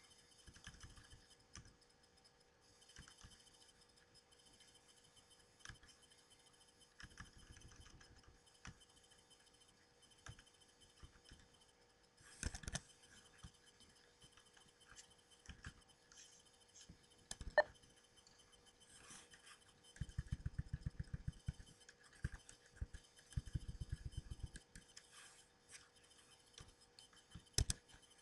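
Faint clicking of computer keyboard keys being typed: scattered single clicks, a few louder ones, and two quick even runs of key presses about two thirds of the way through, over a faint steady hum.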